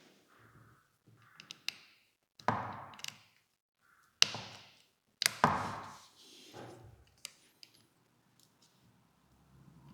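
Handling noise from working on a camera with small tools: scattered light clicks and taps, and three louder knocks in the middle, as tools, screws and the camera body are picked up and set down on a work surface.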